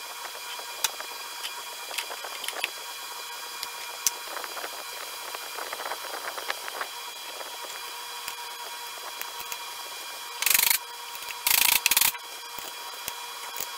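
Two short, loud hissing sprays about a second apart, over a steady hum of shop equipment with scattered light clicks.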